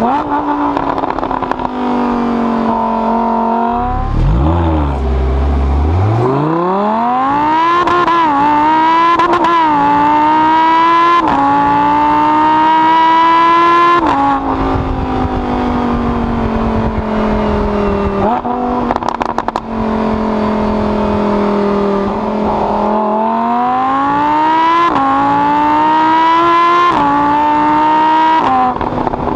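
Lamborghini Huracán's V10 engine heard from inside the cabin under hard acceleration: the engine note climbs steeply, dropping sharply at each quick upshift, settles to a steadier lower note for a while, then climbs again through more upshifts near the end.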